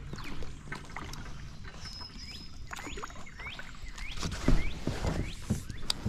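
Kayak paddling: the paddle dipping and swishing through the water, with louder knocks against the plastic kayak in the last couple of seconds. Birds chirp in the background throughout.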